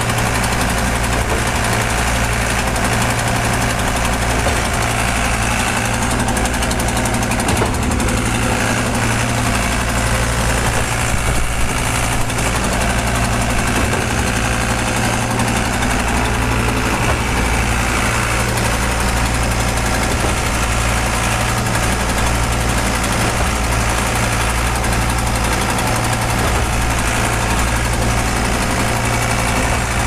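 Engine of a trailer-mounted concrete mixer pump running steadily at a constant speed.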